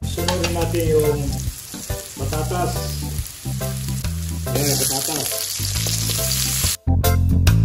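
Diced onion, garlic and carrot sizzling in oil in an aluminium wok. The sizzle grows louder a little past halfway as diced potato is tipped in. Quieter background music with a bass line runs underneath.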